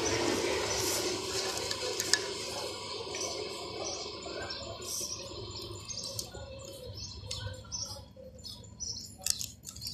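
Faint outdoor background noise that fades over several seconds, followed by scattered short, sharp high-pitched ticks in the last few seconds.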